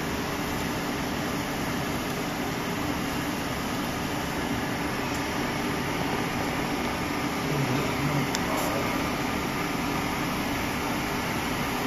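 Steady hum and fan noise of powered electronics-assembly machinery, with a brief low sound and a click about eight seconds in.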